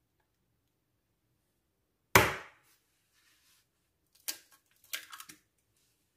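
A hen's egg struck sharply once to crack its shell, then a few small crackles and clicks as the shell is pried apart by hand and the egg drops into a glass jug.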